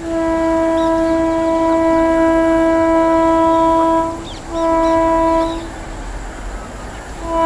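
Horn of an approaching WAP-7 electric locomotive sounding in steady blasts: one long blast of about four seconds, a second blast of about a second just after, and another starting near the end.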